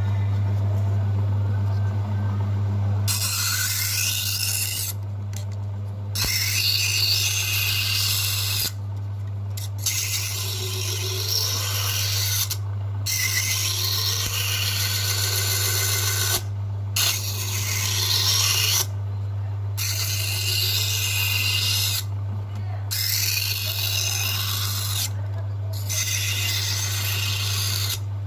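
An electric power tool running with a steady low hum. From about three seconds in comes a series of grinding or abrasive scraping passes, each a few seconds long, with short breaks between them.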